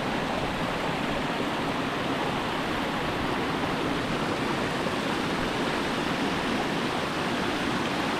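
Waterfall and creek water rushing over rocks: a steady, unbroken rush.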